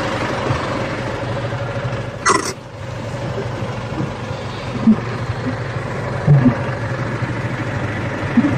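Renault truck's diesel engine idling steadily, heard from inside the cab. There is a sharp click about two seconds in, and a few soft knocks later.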